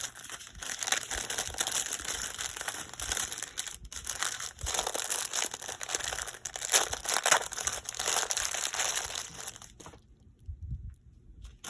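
Plastic packaging of a diamond painting kit crinkling and rustling as it is handled, stopping near the end.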